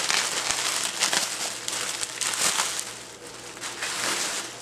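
Plastic bubble wrap crinkling and rustling as it is handled and pulled open, busiest for the first three seconds and then thinning out to a few smaller crinkles.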